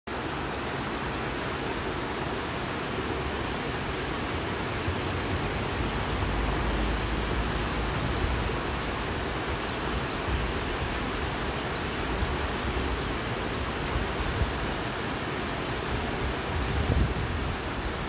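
Steady rushing of a waterfall and white water tumbling over boulders in a rocky stream.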